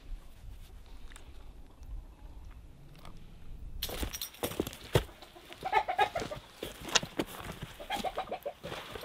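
Domestic hens clucking in short runs of quick notes, starting suddenly about four seconds in after a quiet stretch, with sharp knocks and rustling among them.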